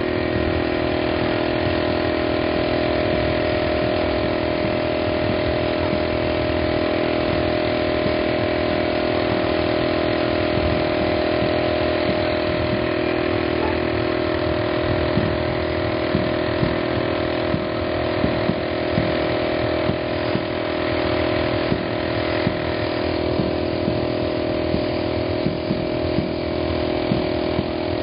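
A steady motor drone that holds one pitch throughout, like an engine idling. From about halfway there are short, sharp taps.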